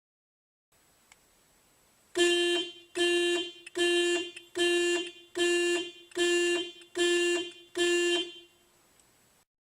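Car alarm sounding: eight even beeps of one steady pitch, a little under a second apart, starting about two seconds in and stopping shortly before the end.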